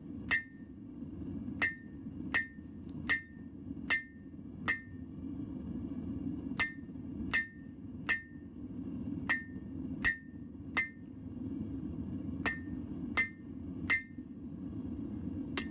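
Blacksmith's hammer striking hot steel on an anvil, each blow ringing out, at about one to two blows a second in three runs with short pauses between. The propane forge burner runs steadily underneath.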